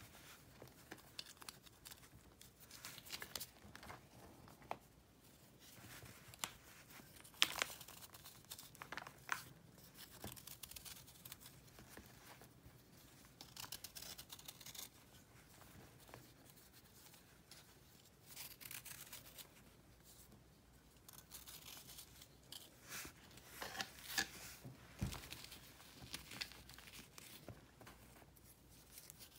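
Chunks and shaved flakes of crunchy pressed powder being crumbled and snapped between the fingers: soft crackling and crunching with sharper snaps now and then, the loudest about seven seconds in and again around twenty-four seconds in.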